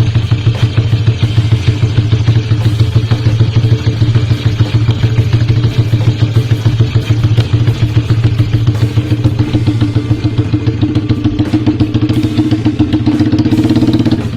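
Drag-bike motorcycle engine running loud and steady with a rapid pulsing beat, its pitch creeping up slightly over the last few seconds before it cuts off abruptly.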